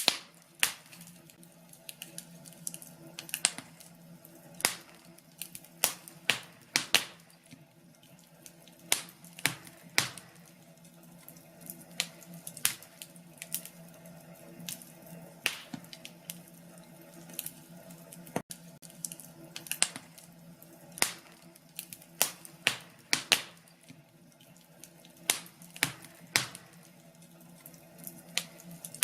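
Wood fire in a fireplace crackling, with irregular sharp pops and snaps several times a second over a low steady hum.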